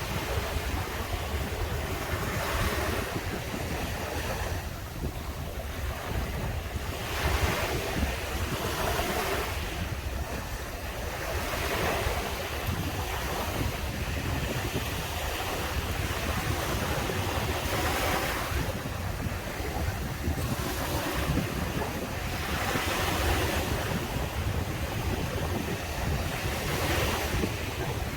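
Surf breaking and washing up a beach, the waves swelling every few seconds, with a steady low rumble of wind on the microphone.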